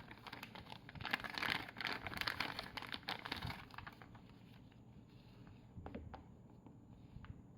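Packaging being handled and opened: crinkling and rustling for a few seconds, then a few light clicks and taps.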